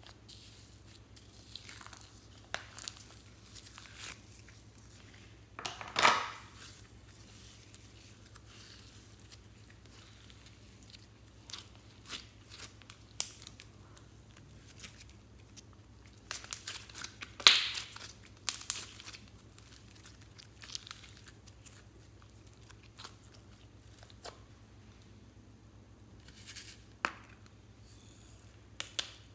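Plastic slime containers and their lids being handled and opened, giving scattered crinkling and crackling with long quiet gaps; the two loudest crackles come about six seconds in and near the middle.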